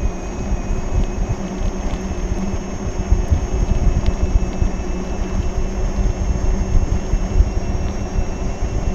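Wind buffeting the microphone and a steady low rumble while riding a Gotway MCM4 electric unicycle, with a thin, steady high-pitched tone running underneath.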